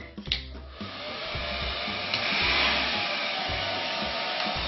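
Handheld hair dryer running with a steady blowing rush that comes up about a second in and gets louder about two seconds in.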